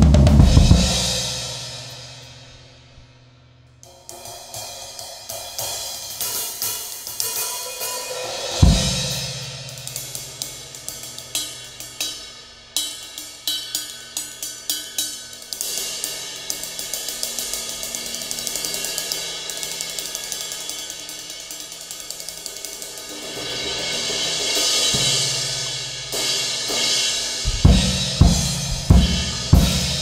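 Acoustic drum kit with a 23-inch Zildjian K Sweet Ride, played freely. A big cymbal hit rings out and fades at the start. Light cymbal patterns follow, with an occasional kick drum, then a cymbal wash that builds up, and a run of loud full-kit hits near the end.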